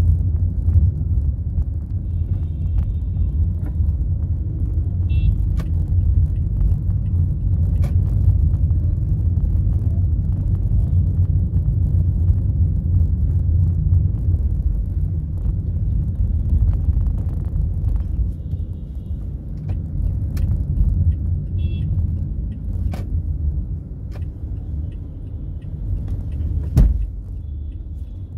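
Steady low road-and-engine rumble of a car driving, with a few faint high beeps and occasional clicks.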